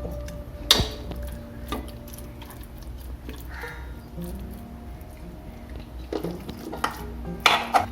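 A metal spoon clinks and scrapes against steel cookware a few times, once or twice early and several times near the end, over faint background music.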